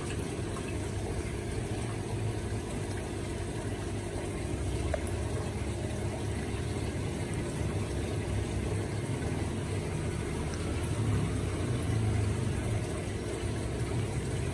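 Steady low hum with running water, from the pump and water flow of a recirculating crab-box system.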